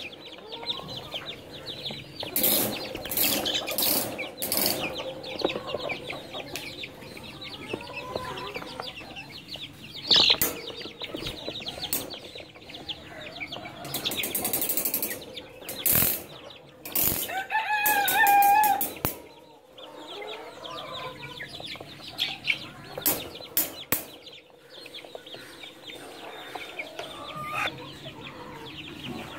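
Polish chicken chicks cheeping, with one longer call about two-thirds of the way through. Scattered sharp knocks and a quick run of fluttering strokes near the middle come through along with the calls.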